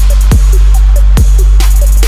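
Electronic background music: a heavy, steady bass with booming kick drums whose pitch drops quickly, two of them here, and quick hi-hat ticks above.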